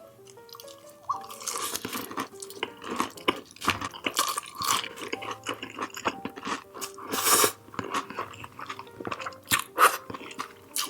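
Close-miked chewing with wet smacks and crunchy bites, in irregular bursts, the loudest crunches about seven and ten seconds in.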